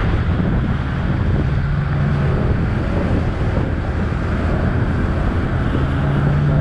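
Wind noise on the microphone of a moving small motorcycle, with the steady hum of its engine underneath.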